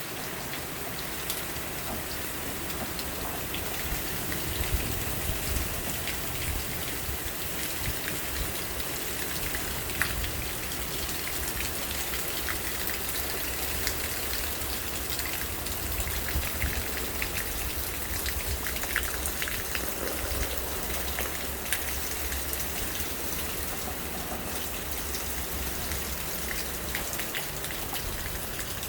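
Steady rain falling, with many scattered sharp taps of drops striking nearby surfaces and a low, uneven rumble of gusting wind on the microphone.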